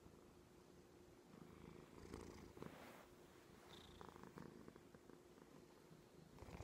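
Domestic cat purring faintly, with a brief rustling noise about two seconds in.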